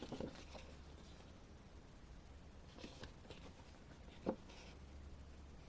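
Quiet handling of a paper photo booklet: a few faint paper rustles and one small tap about four seconds in, over a low steady room hum.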